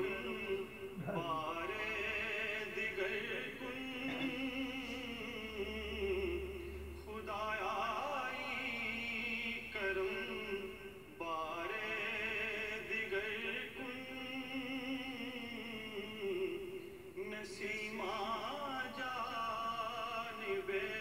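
Music with a solo voice singing long wavering notes, in phrases of a few seconds with short breaks between them.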